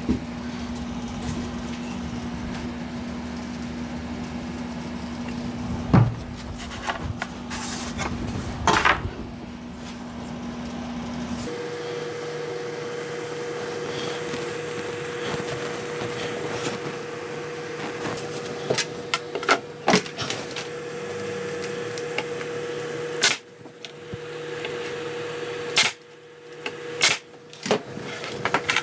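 Workshop handling sounds: scattered knocks and clunks of wood pieces and tools being picked up and set down, over a steady machine hum that shifts pitch abruptly about eleven seconds in.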